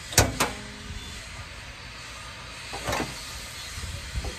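A 2014 Toyota Tundra's hood being released and raised: two sharp clicks at the start, then a softer clunk about three seconds in and a few light knocks near the end as the hood is lifted open.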